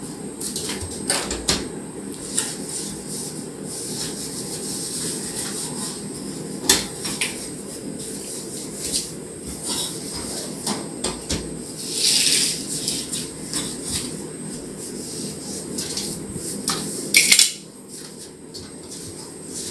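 Scattered clicks, knocks and clinks of hardware being handled inside an under-counter kitchen cabinet while its doors are fitted. There are louder knocks about seven and seventeen seconds in and a short scraping rush about twelve seconds in, over a steady low hum that drops near the end.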